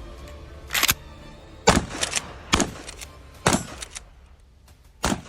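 A series of about six sharp bangs, roughly a second apart, over fading background music.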